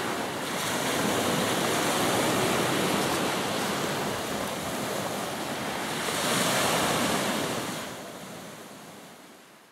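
Small ocean waves breaking and washing up onto a beach, the wash swelling twice, then fading away near the end.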